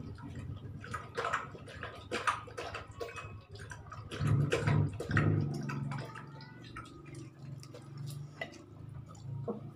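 A Rottweiler lapping water from a plastic bucket: a quick run of wet, splashy clicks that thins out after about six seconds. A steady low hum runs underneath.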